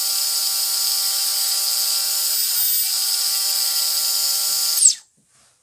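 Micro quadcopter brushless motor with freshly replaced bearings, spinning unloaded with no props at part throttle: a steady high-pitched whine. It cuts off about five seconds in with a quick falling sweep as the motor spins down.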